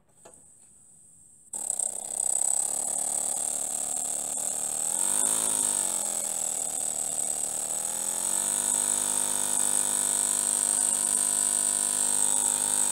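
Miniature two-cylinder single-acting brass steam engine running on compressed air: a fast, steady buzzing beat with a high hiss of exhausting air, starting suddenly about a second and a half in. Its pitch rises and dips as the speed changes about halfway through, then climbs and holds steady.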